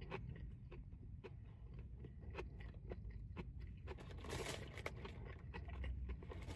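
A person chewing a mouthful of cheeseburger: soft wet mouth clicks and smacks about two a second, with rustling from about four seconds in.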